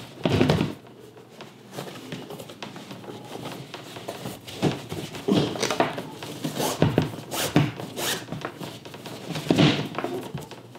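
Shoelaces being pulled through the eyelets of an Adidas Yeezy Boost 350 as it is unlaced, in a series of short, irregular rubbing strokes with a few handling knocks. The aglets are a tight fit in the eyelets, which makes the pulling a little difficult.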